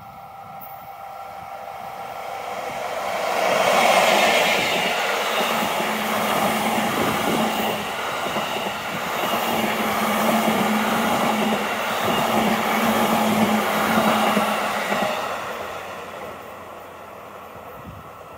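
EF64 electric locomotive hauling an E235 series train set rolling past on the rails. The sound builds to its loudest about four seconds in, stays loud for about eleven seconds as the cars go by with a low hum in stretches, then fades away.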